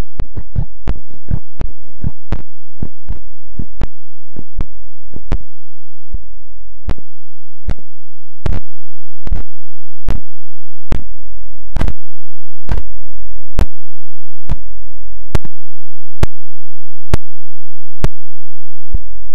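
A loud, very short sound snippet repeated over and over as an edited stutter. The repeats start at about four a second and slow to a bit over one a second, with a deep thump under some of them and a faint low hum behind.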